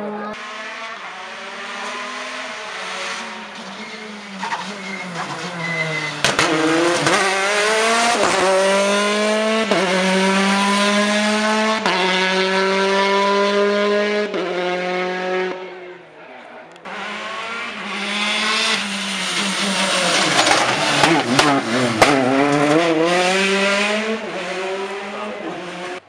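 Rally cars at full throttle, engines climbing in pitch and dropping back at each upshift every couple of seconds, with a few sharp cracks. Two separate passes, split by a short break about 16 seconds in.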